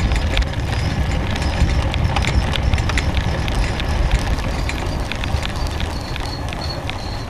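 Wind noise on the microphone of a camera mounted on a moving bike, with frequent irregular rattling clicks as it rolls over the paved road. A faint high steady tone comes in about five seconds in.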